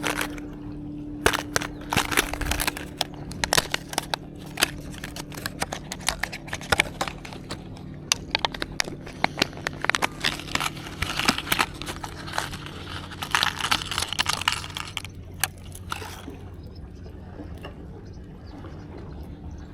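Hands handling fishing tackle close to the microphone while changing to a hardbody lure: irregular clicks, taps and crinkling, thickest in the middle, over a faint steady hum.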